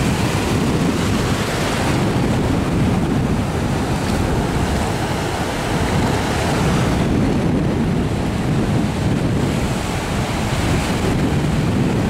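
Ocean surf breaking and washing up the beach, with wind buffeting the microphone in a steady low rumble.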